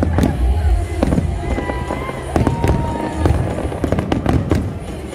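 Aerial fireworks going off in a show: a rapid string of sharp bangs and cracks, often several a second, with music playing underneath.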